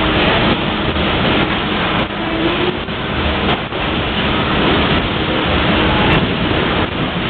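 Loud, steady mechanical noise of a steam tug's engine room with the steam engine running.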